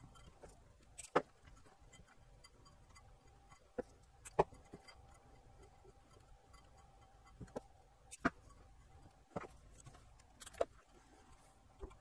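Scattered light clicks and taps, about ten of them at irregular spacing, from handling a subwoofer's metal amplifier plate and its circuit board, over a faint steady thin tone.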